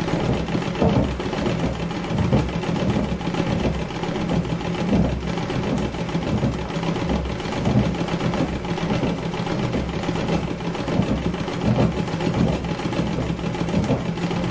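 Treadle sewing machine running steadily, stitching free-motion embroidery through fabric held in a hoop.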